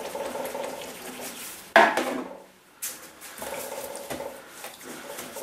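Paintbrush being worked in a container of turpentine to break the paint out of the bristles, scraping and clinking against the container, with one sharp knock a little under two seconds in.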